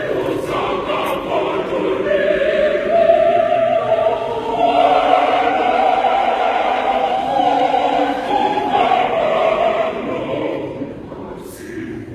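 A choir singing together, holding long notes through the middle, then fading down near the end.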